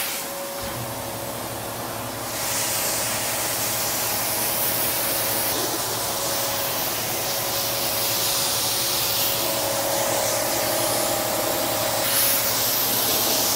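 Compressed-air blow gun hissing steadily as it blows rainwater off freshly sprayed clear coat on a car door, drying the panel before the next coat. The hiss is a little softer for the first couple of seconds, then holds even, with a steady low hum underneath.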